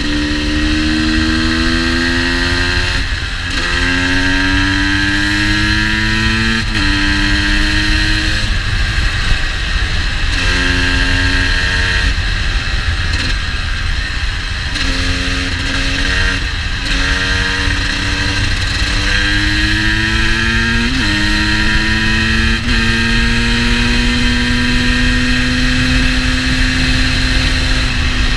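GasGas EC 250's single-cylinder two-stroke engine pulling through the gears: the pitch climbs, drops back at each shift and climbs again several times, then holds a slowly rising steady note near the end. The engine is running a little rich.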